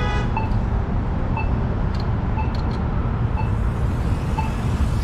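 Street traffic and engine rumble, steady and low, with a short high beep repeating about once a second.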